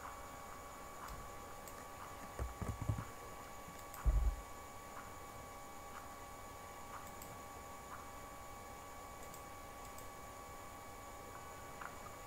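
Faint computer mouse and keyboard clicks over a steady electrical hum, with two short low thumps about two and four seconds in.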